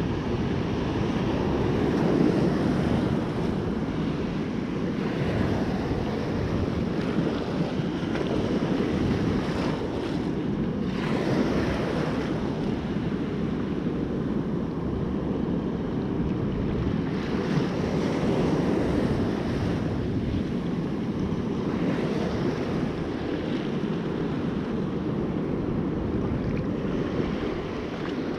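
Heavy storm surf breaking and washing up the beach, swelling and easing every few seconds, with wind buffeting the microphone.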